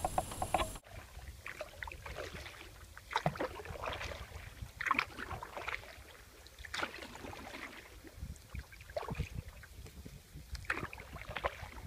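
Canoe paddle strokes in the water: short, irregular splashes and drips every one to two seconds.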